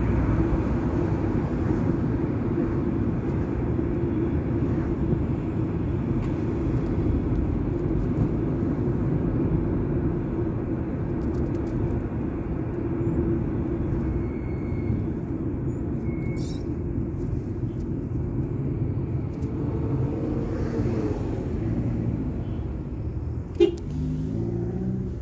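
Steady engine and road rumble of a car driving in traffic, heard from inside the cabin, with one sharp knock about a second and a half before the end.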